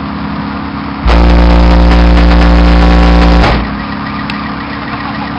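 Car-audio subwoofers in a competition van play one steady low bass tone for about two and a half seconds, so loud that it overloads the recording, then cut off sharply: a dB Drag 'burp', the short bass burst used to measure peak sound pressure.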